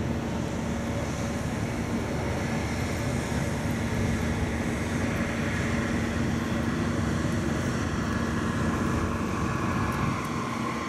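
Steady deck ambience aboard a moving cruise ship: an even rush of wind with a constant low hum from the ship's machinery underneath.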